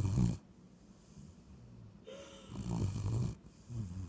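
Snoring: one snore breath trails off just after the start, a longer one comes about two seconds in with a brief whistling note at its start, and a short one comes near the end.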